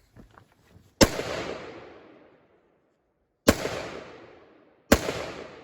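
Three gunshots from a firearm: the first about a second in, then two more closer together. Each crack is followed by an echo that dies away over about a second.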